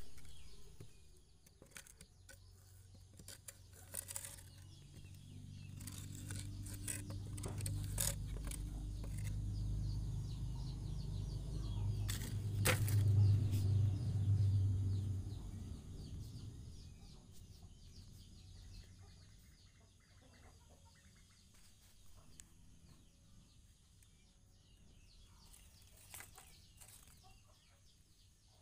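A few sharp knocks of a stick against hollow concrete blocks, over a low hum that swells for several seconds in the middle and then fades; bird calls in the background.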